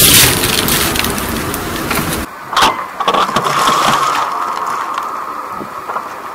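A car tyre rolling onto small cardboard juice cartons and crushing them until they burst, with loud crunching that cuts off a little after two seconds. A sharp crack follows, then a steadier, quieter noise with a lasting tone.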